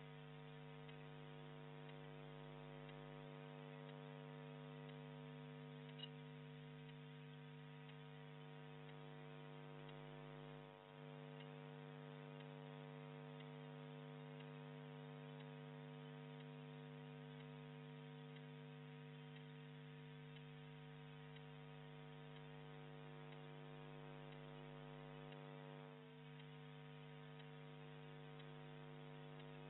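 Steady, faint electrical hum with a stack of even overtones and light hiss, at near-silent level, with one small click about six seconds in.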